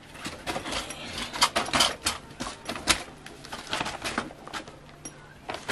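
Irregular clicking and knocking, several sharp strokes a second, from a man moving along with a wooden box in his arms.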